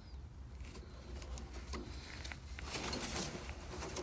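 Faint clicks and handling noise of a Klein stripper-crimper crimping a spade terminal onto a stranded copper wire lead, a little louder about three seconds in, over a steady low hum.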